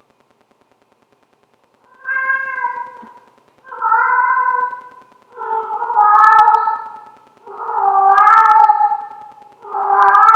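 Male housecat meowing to be let outside: five loud, drawn-out meows about two seconds apart, starting about two seconds in.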